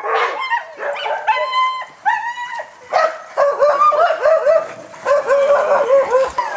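Several huskies screaming together: a constant chorus of high-pitched yips, yelps and howls overlapping one another.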